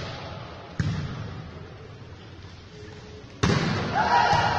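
A football struck hard twice in a large, echoing indoor sports hall, about a second in and again near the end, each bang leaving a long ringing tail. Just after the second bang comes a held shout from the court.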